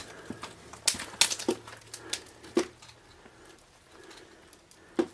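Footsteps on a debris-strewn floor: a handful of sharp, irregular crunches and knocks, the last coming near the end.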